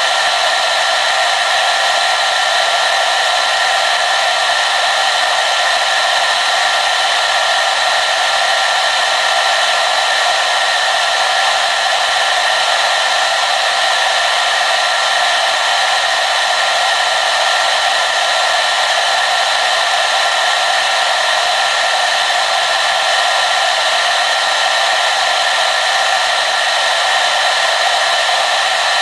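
Hair dryer running steadily on a constant setting: an even, loud blowing whoosh with a faint steady whine in it and little low end.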